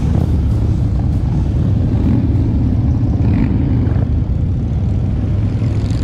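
Harley-Davidson motorcycle's V-twin engine running at low revs as the bike rolls slowly, a steady deep rumble heard close up from the rider's seat.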